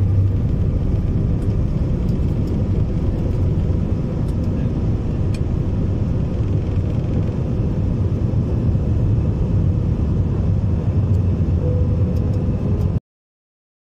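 Jet airliner cabin noise heard from a window seat over the wing as the plane climbs away from the runway: a loud, steady, deep rumble of engines and airflow. It cuts off suddenly near the end.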